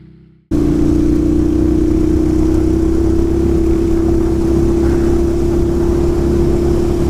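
The fading tail of intro music, then about half a second in an adventure motorcycle's engine cuts in, running at a steady pitch at trail-riding speed, with wind noise on the microphone.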